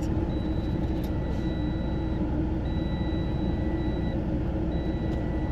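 Truck dashboard warning beeper sounding three long beeps of about a second and a half each over the steady idle of the running engine: the alert for a transmission fault.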